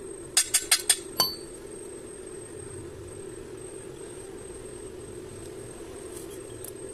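Quick metal-on-metal clinks, about six in the first second or so, the last one ringing briefly. A steady hum carries on underneath.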